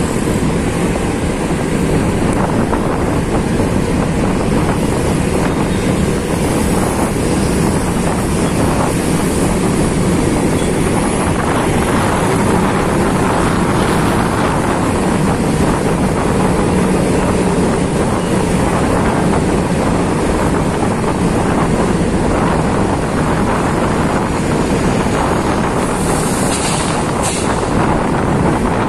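Wind rushing steadily over the microphone on a moving Honda PCX 150 scooter, with the scooter's running and road noise underneath.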